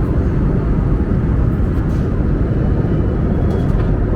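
Airbus A321-200 cabin noise: the steady low rumble of jet engines and airflow heard from inside the passenger cabin.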